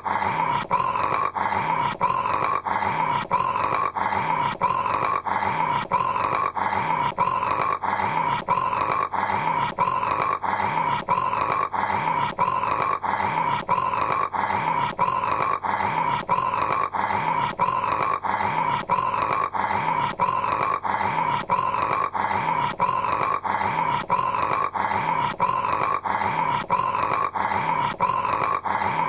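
A person snoring: the same snore repeats at a fast, even rhythm, a little more than once a second, unchanging throughout, like a short recording looped.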